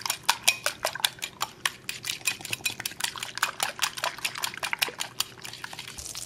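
A metal fork beating eggs in a ceramic dish, clicking against the dish about seven times a second, then stopping a little past five seconds in.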